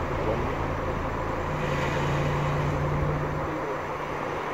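A motor engine droning steadily over a constant rush of background noise; the drone steps up in pitch about a second and a half in.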